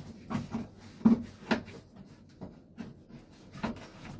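Irregular clicks and knocks of parts being handled and set in place, as a door seal is fitted during an interior reassembly.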